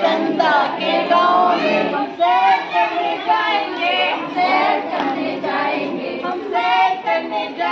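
Several high voices singing a Hindi song together, with its melody wavering and no clear beat beneath it.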